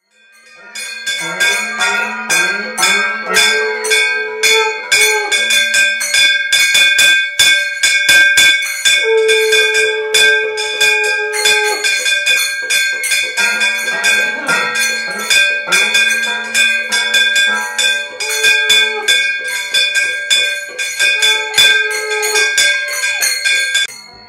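Small metal hand bells or cymbals rung in a rapid, continuous jingle that keeps ringing, while a man's voice chants Krishna's names in long held, melodious notes.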